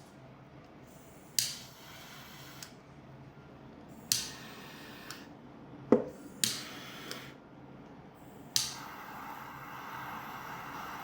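A series of four sharp hisses, each starting suddenly and fading over about a second, with a short sharp knock near the middle; the last hiss settles into a steady hiss.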